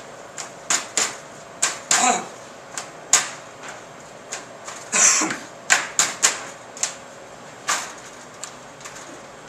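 Thin plastic covers being handled and flexed: an irregular run of sharp crackling clicks and snaps, with a longer crinkling rustle about five seconds in.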